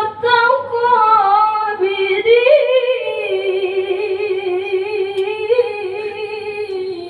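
A qari reciting the Quran in melodic tilawah style, drawing out one long ornamented note with small wavers in pitch. The voice rises about two and a half seconds in and glides down near the end.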